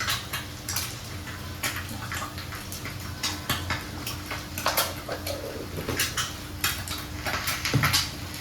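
Metal utensils clinking and knocking against dishes and cookware during breakfast egg preparation: irregular sharp clinks, about one or two a second, over a steady low hum.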